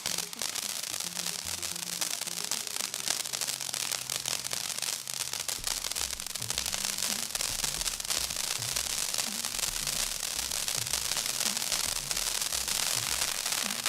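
Fireworks crackling densely and without a break, a fast hail of tiny pops, over music with a bass line that grows stronger about five seconds in.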